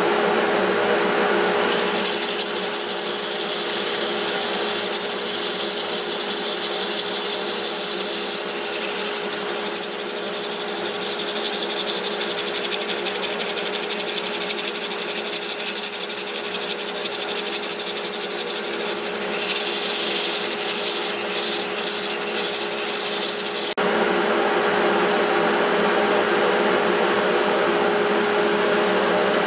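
Wood lathe running with a steady hum while a tool works against the spinning burl, making a continuous rough rushing noise. The noise changes abruptly about 24 seconds in.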